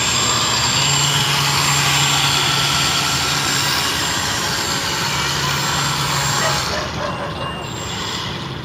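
Radio-controlled airboat's stern air propeller and motor running steadily as the boat cruises over the water. About seven seconds in the sound drops and gets duller.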